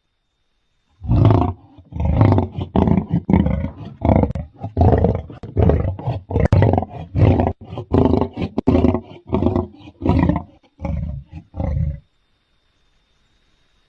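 Lion roaring bout: a run of deep, rhythmic grunting roars, about one and a half a second, that grow shorter and weaker and stop about twelve seconds in.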